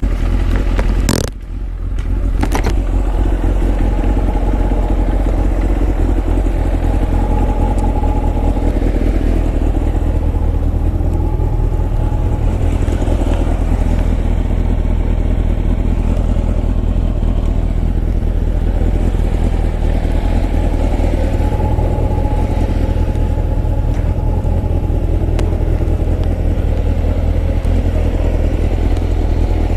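Kawasaki ZX-9R motorcycle's inline-four engine running steadily, with a brief dip about two seconds in.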